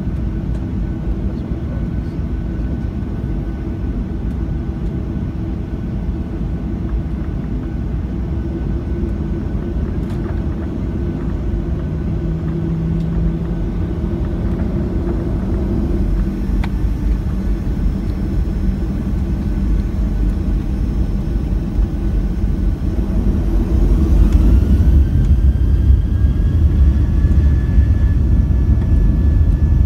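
Boeing 737-700's CFM56-7 engines heard inside the cabin from a window seat: a steady low rumble, then about 23 seconds in the engines spool up for takeoff, a whine rising in pitch and settling into a steady high tone as the rumble grows louder.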